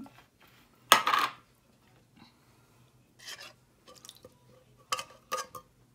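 Cans of thick cream being emptied into a mixing bowl: a loud metal clank with a short scrape about a second in, then faint scraping and two light knocks near the end.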